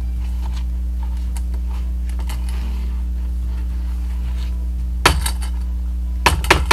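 Spatula scraping and knocking against a small stainless steel bowl while creaming butter and sugar, with sharper metallic clinks about five seconds in and again near the end. A steady low hum runs underneath.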